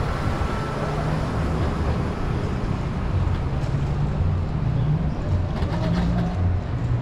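Steady low rumble of a bicycle ride on a city street, heard through an action camera's microphone: road and wind noise.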